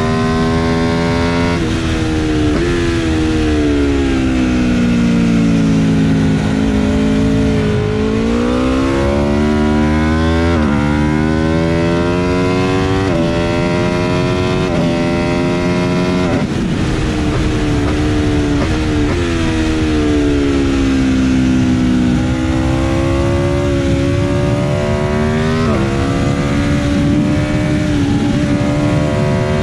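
Aprilia RSV4 RF's V4 engine heard onboard at speed on a race track: revs climb with several sudden upshifts in the middle, sag as the bike slows, and jump up at a downshift near the end, over a steady rush of wind noise.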